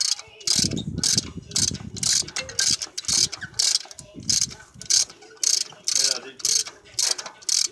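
Ratchet wrench on an extension and spark plug socket, clicking on each back-swing in a steady rhythm of about two strokes a second as it turns a spark plug in the cylinder head.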